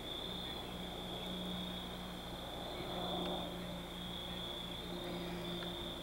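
Crickets trilling steadily in a night chorus, with a faint low hum underneath.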